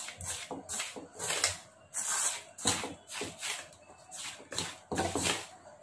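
A hand raking and rubbing through dry flour and spice mix in a stainless steel bowl, making a dry rustling scrape in uneven strokes of about three a second. This is the dry ingredients for paratha dough being mixed by hand, before any water or cucumber goes in.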